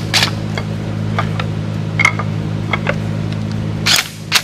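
Cordless impact driver driving exhaust manifold bolts into a Cummins ISX cylinder head: a steady motor hum with a few sharp metallic clicks, and two louder knocks near the end.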